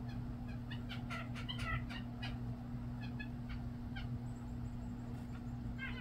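Small songbirds calling: quick clusters of short chirps, thickest about a second in and again near the end, with a faint run of very high thin notes between them, over a low steady hum.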